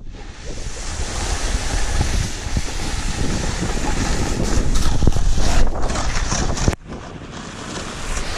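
Wind rushing over the camera microphone and a snowboard scraping across packed snow during a downhill run. The noise is loud and drops off abruptly near the end.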